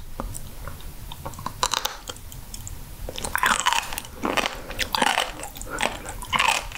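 Close-miked chewing of raw sturgeon spine cartilage: a gristly, crunchy chew like pork cartilage, in irregular clusters of crisp crunches.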